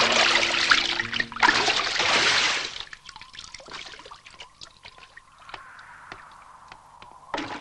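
Cartoon sound effect of water splashing and sloshing in a wooden bucket as it is dipped and filled: two loud splashes over the first three seconds, then quieter dripping and trickling. A short burst of sound comes again near the end.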